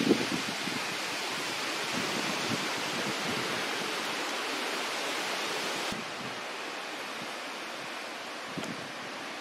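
Steady wind rushing through the trees and brush, a broad even hiss that drops a little in level about six seconds in.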